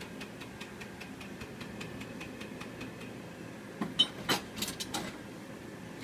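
Pulsed laser welder firing: a rapid run of even clicks, about five a second, that stops within the first second. A few louder, irregular clicks and knocks follow about four to five seconds in.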